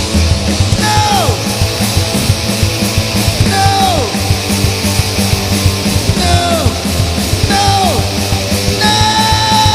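A rock band playing live at full volume with drums and distorted instruments. A high lead line slides steeply down in pitch four times, then holds one long high note near the end.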